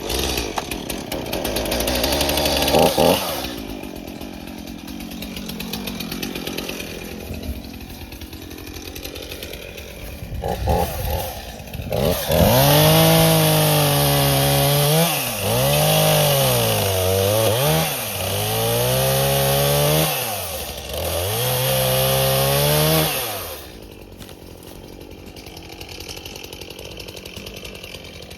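Small two-stroke chainsaw cutting into a dead snag tree. The engine revs up, runs lower for a while, then about halfway through pulls down in pitch and speeds up again several times as it bites into the wood under load. Near the end it drops back to a quieter idle.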